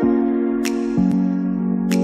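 Background music: soft sustained chords that change about a second in, with a light high tick twice.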